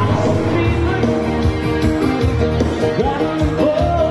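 Rock-and-roll music with a steady beat and a sustained low bass, with bending pitched notes coming in about three seconds in.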